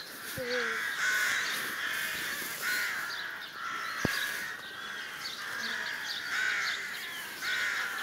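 A flock of birds calling over and over, with a single sharp knock about four seconds in.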